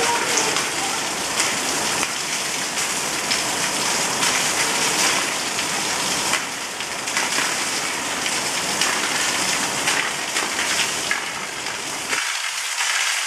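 Heavy rain pouring onto a flooded paved lot and parked vehicles: a steady hiss of the downpour with scattered sharper drop taps.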